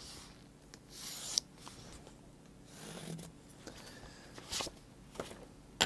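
Pencil scratching along the edge of a book on corrugated cardboard, a few short scratchy strokes with light taps and clicks as the book and pencil are handled.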